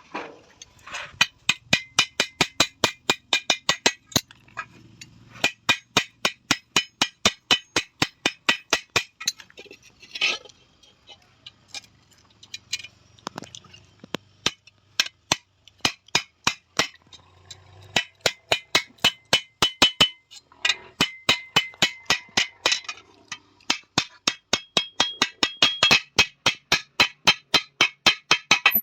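Hand hammer beating a sheet-iron tawa, metal on metal: rapid, even blows about four to five a second, each with a ringing clang, in runs of a few seconds broken by short pauses.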